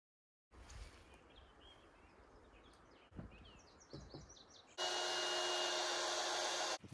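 Birds chirping over outdoor ambience, with a couple of soft thumps. Near the end a power tool's motor runs at a steady pitch for about two seconds, the loudest sound, then stops abruptly.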